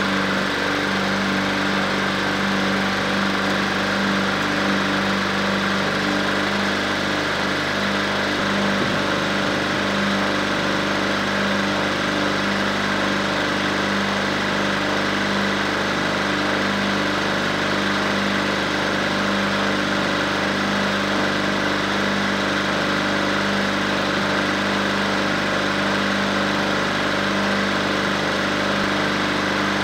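Small crawler dozer's engine idling steadily at a constant pitch.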